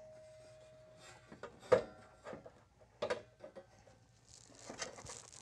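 Battery tray being lowered into a car's engine bay and fitted into place: a few light knocks and clicks, the sharpest about two seconds in, then a rustling scrape near the end.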